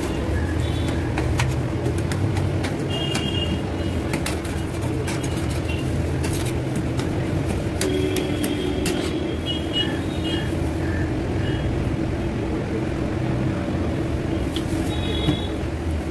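Metal spatulas scraping and tapping on the steel cold plate of a roll ice cream machine as the ice cream base is spread flat. Under them runs a steady low hum and street traffic noise, with a few short high beeps.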